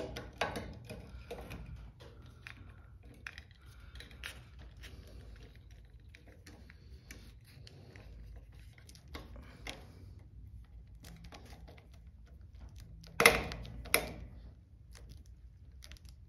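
Scattered small metallic clicks and taps of a screwdriver and hands fitting a replacement Honeywell zone valve motor into its sheet-metal bracket on the valve's power head, with two sharper knocks about a second apart near the end.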